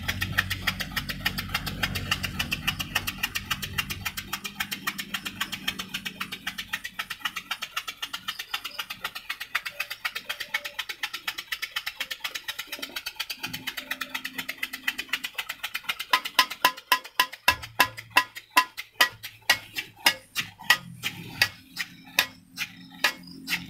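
Homemade miniature steam engine running, its oscillating cylinder and saw-blade flywheel making a fast, even ticking beat that slows to fewer, louder strokes about two-thirds of the way in. Background music plays underneath.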